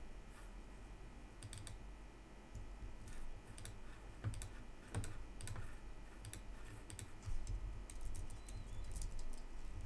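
Computer keyboard typing: scattered key clicks in short irregular bursts, over a low steady background hum.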